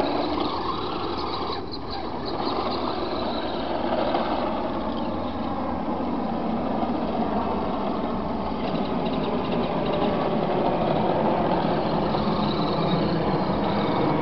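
Radio-controlled 1:10 scale car driving about on pavement, its motor running steadily with a rough, noisy drone that grows a little louder in the second half.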